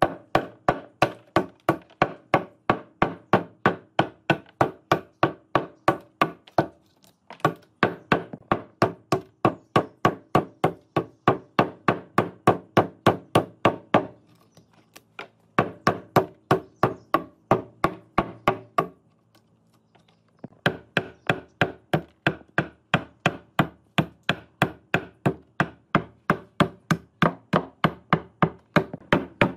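A tool striking wood over and over, about two to three blows a second, in steady runs with three short pauses.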